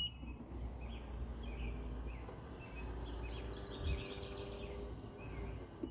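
Outdoor ambience of birds chirping over a low steady rumble, with a faint steady hum and a soft knock about four seconds in.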